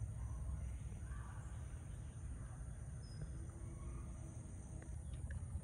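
Quiet background noise: a low steady hum with a faint, thin, steady high-pitched tone over it.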